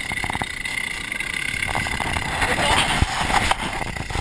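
Two-stroke chainsaw engine idling, with scuffing and knocks over it.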